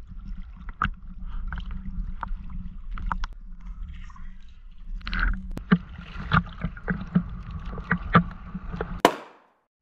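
Choppy water sloshing and slapping right against the microphone at the surface, with many sharp splash and drip clicks over a low wind rumble. It cuts off suddenly near the end.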